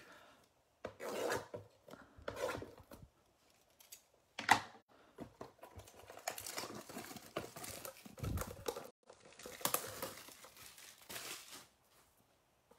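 Trading card packaging being torn open and crinkled: several short rips and rustles, a sharp snap about four and a half seconds in, then a longer stretch of plastic crinkling with a dull thump partway through.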